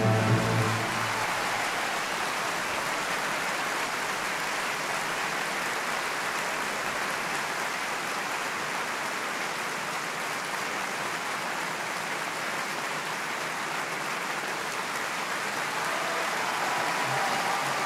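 A theatre audience applauding steadily. Before that, the orchestra's final chord cuts off about half a second in.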